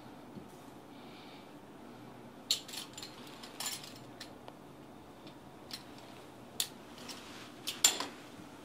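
Kitchen utensils, a knife and a small pastry cutter wheel, handled and set down on the countertop: a handful of light, sharp clicks and taps at irregular intervals, starting about two and a half seconds in, the loudest near the end.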